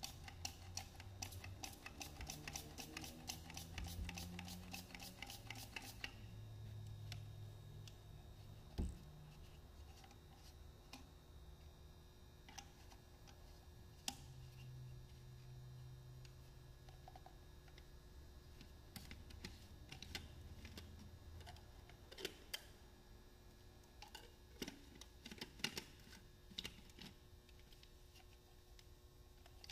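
Faint clicking of hard plastic parts as a misting water bottle's screw lid and spray chamber are twisted apart and refitted: a rapid, even run of clicks for the first six seconds, then scattered single clicks and taps.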